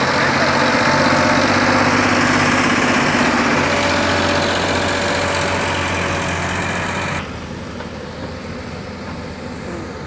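Sonalika DI-740 tractor's diesel engine running steadily as it hauls a loaded trolley past, its sound slowly fading. About seven seconds in, the sound drops abruptly to the quieter engine of a JCB backhoe loader.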